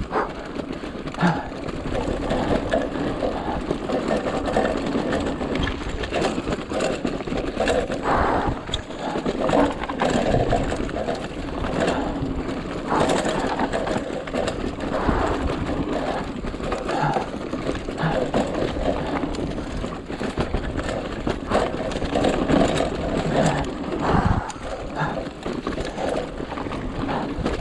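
Mountain bike clattering down a rough dirt trail at speed: tyres on dirt and a continuous rattle from the bike, with occasional knocks over bumps.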